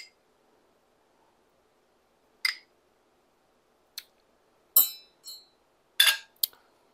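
A metal spoon clinking lightly against ceramic dishes, a small ramekin and a plate, as chopped tomato is spooned onto a serving. About six short clinks at uneven intervals, the first a couple of seconds in.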